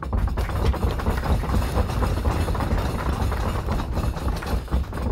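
Small audience applauding: dense, even clapping from a group of people around a table.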